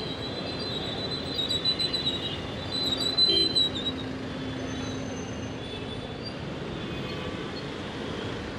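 Dense road traffic of cars and motorbikes creeping in a jam, with a high-pitched squeal over it for the first few seconds.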